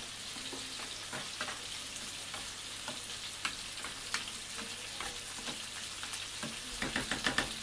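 Sliced pork and onion frying in olive oil in a frying pan: a steady sizzling hiss with scattered pops and crackles. About seven seconds in comes a quick run of clicks.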